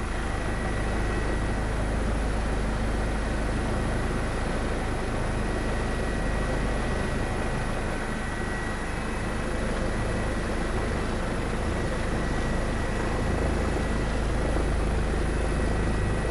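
Steady in-flight aircraft noise, the drone of engine and airflow heard from onboard, with a thin steady high whine over it.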